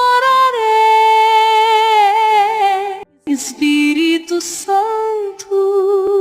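A woman's voice singing long held notes of a slow worship song, with vibrato and a short break about three seconds in.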